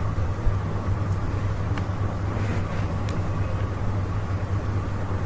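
Steady low rumbling hum of background noise, with a few faint clicks of computer keys being typed.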